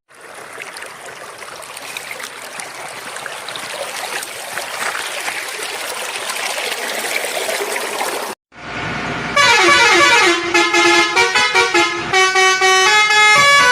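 An even hissing noise for about eight seconds, then after a brief break a run of loud vehicle horn honks, short repeated blasts at changing pitches.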